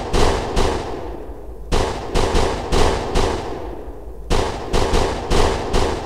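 .44-calibre revolver (Colt Anaconda) firing in rapid strings of shots a few tenths of a second apart. The end of one string comes first, then a string of about five shots near two seconds in and another of about six shots a little past four seconds. Each string trails off in echo.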